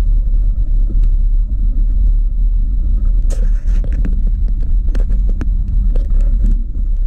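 Steady low rumble of wind and vibration on the microphone of a camera carried on a moving touring bicycle. Scattered clicks and rattles come as it rolls over bumps in the path.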